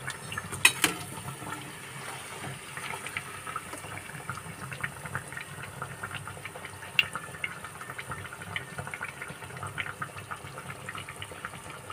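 Hot oil sizzling and crackling in a frying pan as a batter-fried bread pakoda is lifted out on a slotted spatula, with a couple of sharper clicks, one about a second in and one about seven seconds in.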